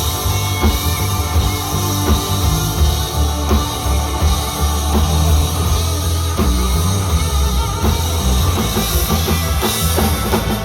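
Live rock band playing an instrumental break with no vocals: drum kit with cymbals, a heavy bass line and electric guitar.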